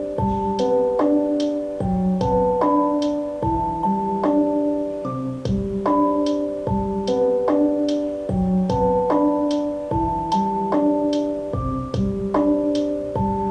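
Background music: electric piano chords over a soft, steady beat with light percussion ticks about twice a second.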